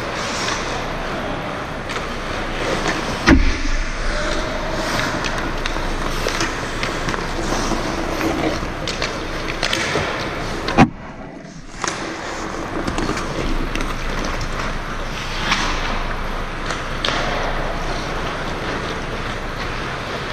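Ice hockey play in a rink: skate blades scraping the ice and sticks and puck clacking over a steady rink hum, with two sharp knocks, about three seconds in and near the middle.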